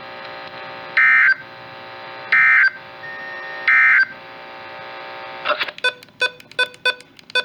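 NOAA Weather Radio SAME end-of-message data bursts: three short bursts of digital screeching, about a second and a third apart, over a steady electronic hum from the receiver. Near the end a rapid run of short beeps starts, several a second.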